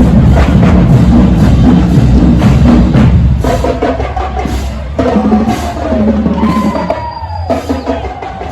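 Marching band drumline playing a cadence, snare and bass drums on a steady beat, dense and loud for about three seconds and then lighter.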